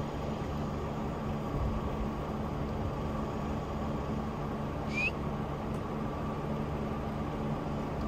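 Farm vehicle's engine running steadily at low revs, a constant low hum. A single short high rising chirp comes about five seconds in.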